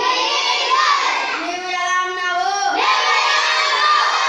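A child's voice chanting in a sing-song, with long held notes, reading lines aloud from a sheet in a classroom language exercise in Tamil.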